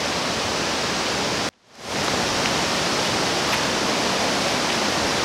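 Steady rush of running water, an even hiss with no pitch to it; it cuts out abruptly about one and a half seconds in and fades back up, with a few faint ticks later on.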